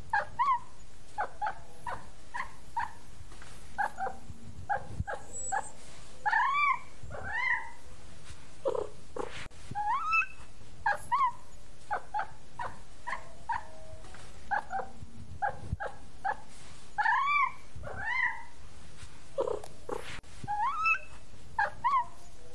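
Domestic cats meowing and chirping over and over, short rising and arching calls about one or two a second.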